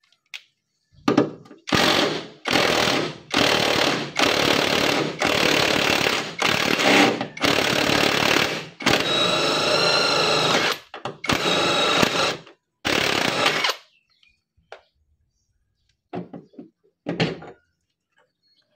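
Cordless impact wrench hammering on the upper mounting nut of a Hyundai Accent's rear shock absorber, in a long run of bursts with short pauses between trigger pulls. One burst about nine seconds in carries a higher steady whine, and two brief bursts follow near the end.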